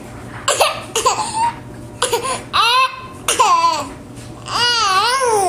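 A young child laughing in five short high-pitched bursts, the laughter broken up by hiccups.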